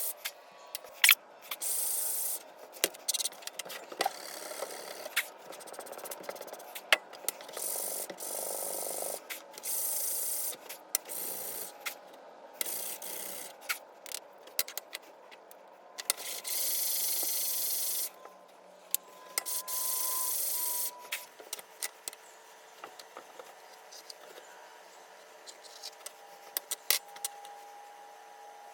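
Knife-finishing work in a workshop: several hissing blasts, each a second or two long and cut off sharply, with sharp clicks and rubbing, scraping noises between them.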